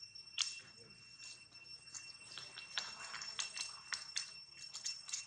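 Faint, irregular crackles and clicks of dry leaf litter as small monkeys move and handle things on the ground, over a steady high-pitched whine.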